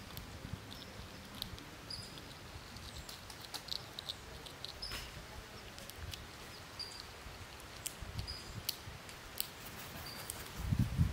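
Small birds giving short, high chirps every second or so, with scattered light ticks and clicks. Near the end comes a louder, low fluttering as a crow's wings beat close by.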